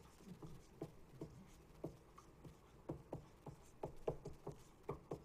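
Dry-erase marker writing letters on a whiteboard: a run of short, faint scratches and taps, several a second, as each stroke is drawn.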